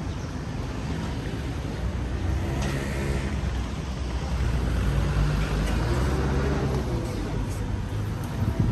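Street traffic: a motor vehicle's engine passing close by on the road, its hum growing louder about halfway through, over the general noise of the road.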